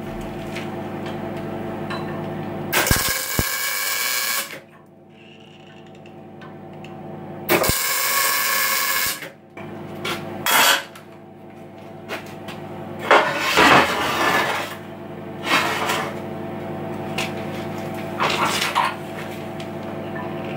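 MIG welder welding a piece into the worn bearing race of a tractor fuzee arm: a series of short crackling welding bursts, each lasting a second or two, with the welder's steady hum between them.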